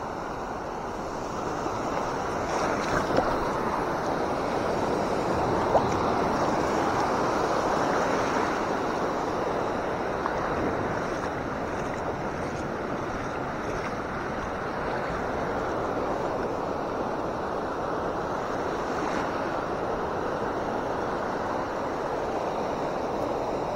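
Surf washing in over a sandy, rocky shore, swelling and easing as the waves come in, with a couple of light clicks about three and six seconds in.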